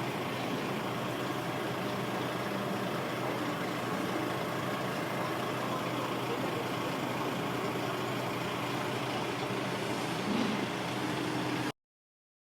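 Scania K113 bus diesel engine idling steadily, then cutting off abruptly near the end.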